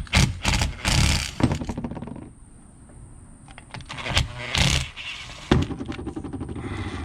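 Handling noise from a steering wheel being stripped down: irregular clicks, knocks and rattles of tools, screws and plastic trim. There are two longer stretches of rattling and a sharper knock about five and a half seconds in.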